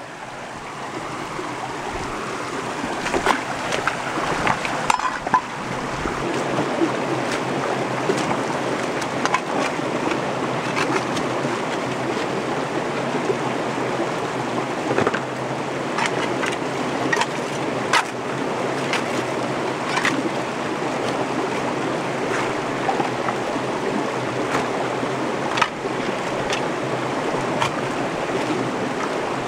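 Shallow rocky creek rushing steadily, rising in over the first few seconds, with scattered sharp clicks and knocks from a hand tool prying at the bedrock in a crevice at the water's edge.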